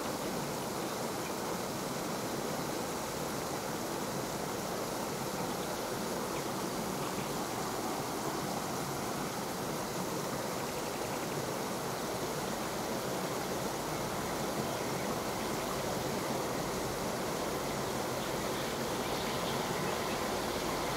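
Steady, even outdoor background noise with no distinct events, growing slightly louder toward the end.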